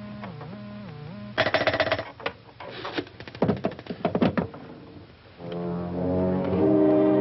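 Dramatic horror film score: a low, wavering tone that slides up and down about twice a second, broken off by a stretch of rapid, sharp staccato hits, and then a loud, sustained brass chord swelling in from about five seconds in.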